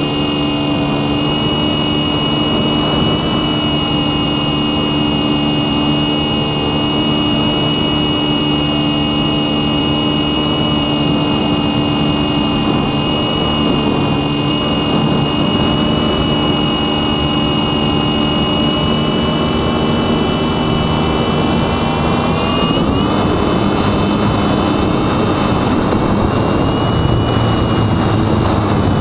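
Sunnysky X2220 brushless motor spinning a 9x7.5 propeller on a Mini Talon flying wing in flight: a steady electric whine over loud rushing wind. The pitch rises about three-quarters of the way through as the throttle is opened up.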